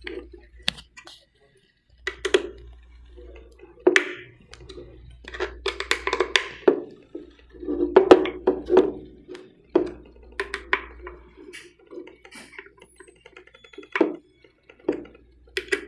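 Hex key turning the small screws that hold a seal plate to a valve plate, with irregular clicks, knocks and scrapes of the tool against the metal plates and hands handling the plastic socket.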